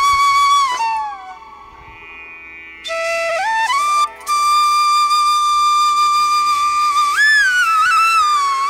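Background music: a slow flute-like melody with long held notes and sliding pitch bends. It drops softer about a second in and comes back about three seconds in.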